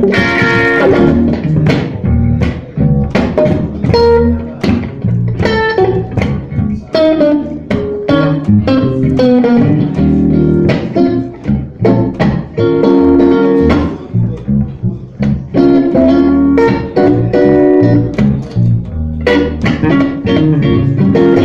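A blues band playing: guitar lines over bass guitar, with frequent plucked notes.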